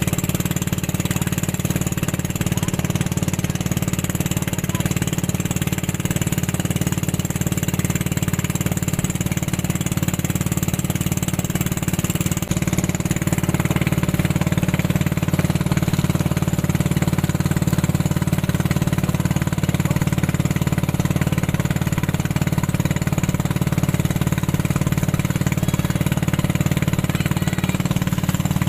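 Tow boat's engine running steadily under way, a loud constant drone over a steady hiss; it steps up slightly in level about twelve seconds in.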